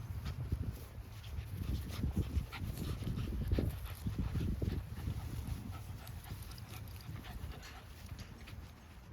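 A dog panting, with scattered small clicks over a steady low rumble; it fades toward the end.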